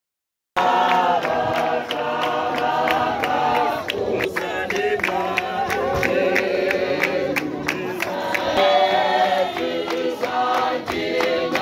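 A group of voices singing a hymn together, with sharp percussive hits running through it; it starts abruptly about half a second in.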